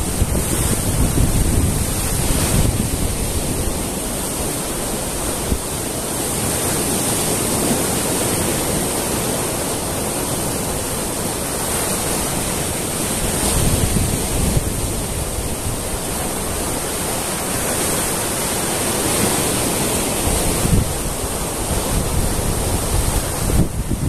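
Sea surf breaking on boulders and washing up a sandy beach in a continuous rush that swells and eases as each wave comes in. A wave bursts against a rock at the start.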